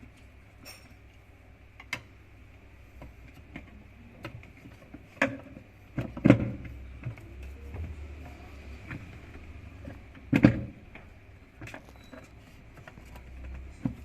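Scattered knocks and clicks of tools and parts being handled while taking out an automatic washing machine's pulsator, loudest about six and ten seconds in, over a low steady hum.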